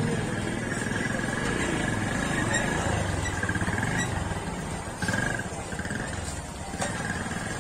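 Busy street ambience: motorcycle engines running close by amid general crowd noise, with a thin steady high tone under it that breaks off briefly about five seconds in.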